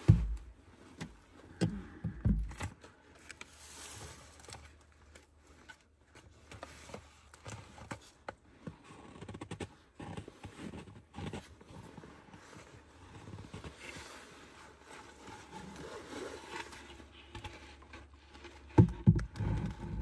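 Wooden beehive frames and boards being handled: scattered knocks, clicks and scrapes, with two heavier thumps in the first few seconds.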